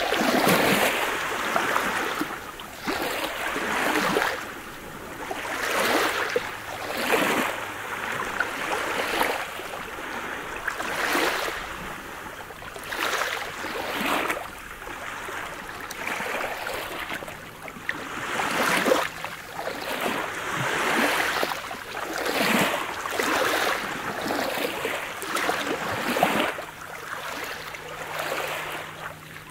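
Small sea waves breaking on a pebble beach and washing in and out over the stones, in repeated surges every one to two seconds.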